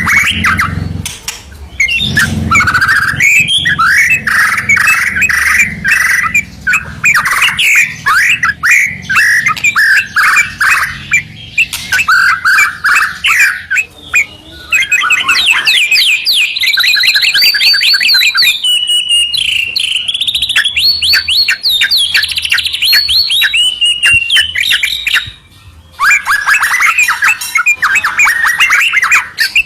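White-rumped shama and yellow-vented bulbul singing loudly together, a dense run of rapid whistled and chattering notes with a brief pause near the end.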